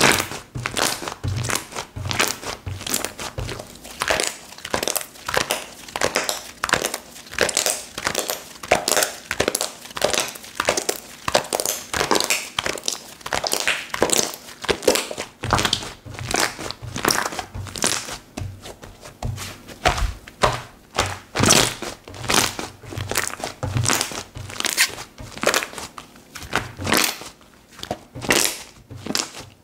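Slime from Kokomo Slime being squeezed, stretched and poked by hand: a rapid, continuous run of short sticky clicks and pops.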